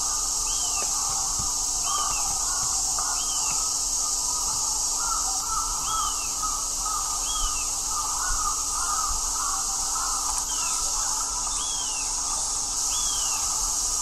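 Crows cawing, with a short high rising-and-falling call repeating about every second and a half from another bird, over a steady high hiss.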